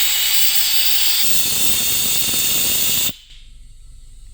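Compressed air rushing through a pneumatic venturi oil extractor: a loud, steady hiss that draws the vacuum sucking engine oil out through the tube. About a second in a lower rushing joins it, and a little after three seconds the hiss cuts off suddenly.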